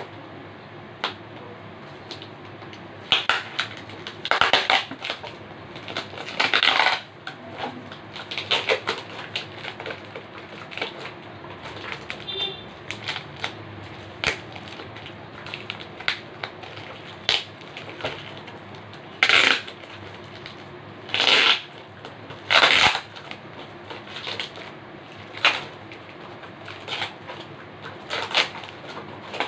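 Plastic packaging rustling and crinkling as it is handled and unwrapped by hand, in uneven bursts with several louder crackles.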